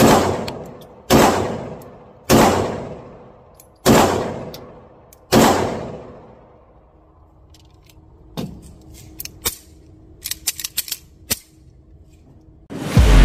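Four 9mm pistol shots about a second and a half apart, each with a long echoing decay in an indoor range booth; after the last shot the gun is empty and the slide locks back. Several seconds later come scattered metallic clicks of the magazine being released and the pistol handled, and music starts near the end.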